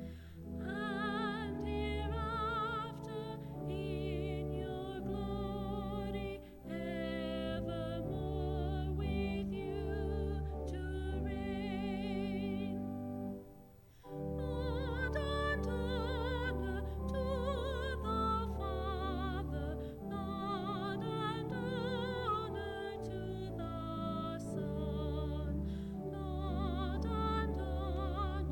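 A singer with strong vibrato singing a song over instrumental accompaniment with long held low notes, breaking off briefly about halfway through.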